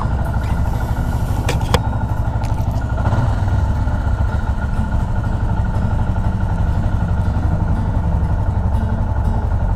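Motorcycle engine running steadily with a low rumble, with a couple of sharp clicks about a second and a half in.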